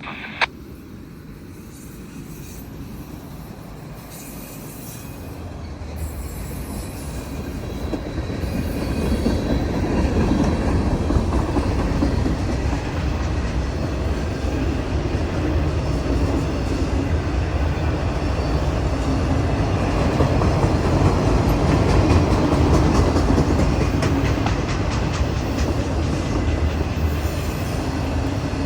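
CSX freight train rolling past on the main line, its rumble growing louder over the first ten seconds and then holding steady.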